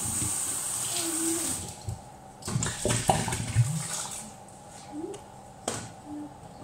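Kitchen tap running water into a stainless steel kettle, shut off about a second and a half in. Then a few metal knocks and clatters as the kettle is handled at the sink.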